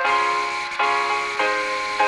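Background music: keyboard notes changing a few times over a steady hiss.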